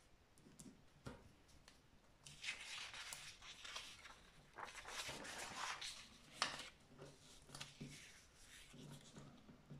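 Sheets of paper rustling as pages are turned over by hand, in several bursts, with one sharper crackle a little past the middle.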